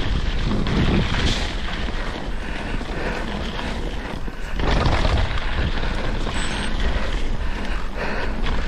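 Wind rushing over the camera microphone while a mountain bike's tyres roll over a gravel and rocky trail, the bike rattling on the rough ground. The noise eases briefly a little before halfway, then picks up again.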